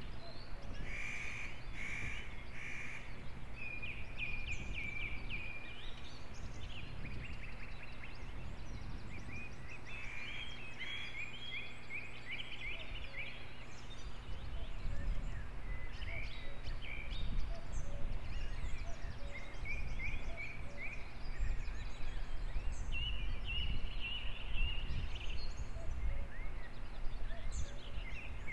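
Ravens calling in repeated series of quick, rattling notes, over a steady low background rumble.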